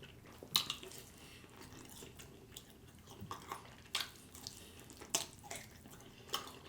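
Faint, scattered wet clicks and smacks of someone chewing food, about one every second with pauses between.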